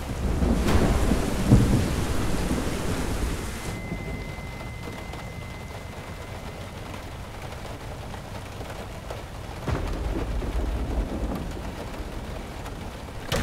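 Rain falling on a car's roof and windshield, heard from inside the car, with low rumbles of thunder in the first few seconds and again about ten seconds in. A faint high steady tone rings for a few seconds in the middle.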